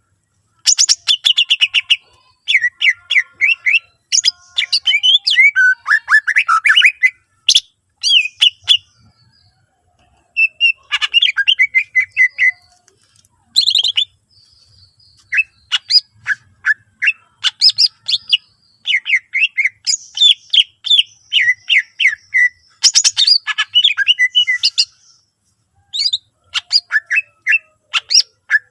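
Cucak ijo (green leafbird) singing a varied song mixed with mimicked calls of other birds. The song comes in quick phrases of rapid chattering notes and slurred whistles, with short pauses between phrases and a longer lull about a third of the way in.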